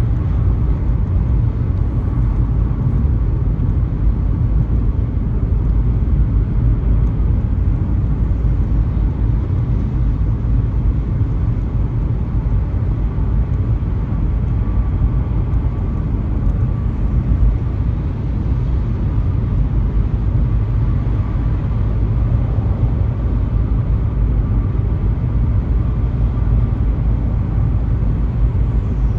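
Car driving on a highway: a steady low rumble of tyres and engine road noise.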